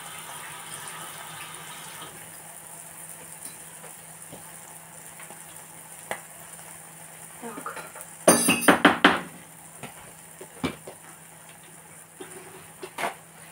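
Kitchen sink tap running briefly as a spatula is rinsed, then stopping about two seconds in. About eight seconds in comes a loud, rattling clatter of dishes and utensils being handled, with a few lighter knocks near the end.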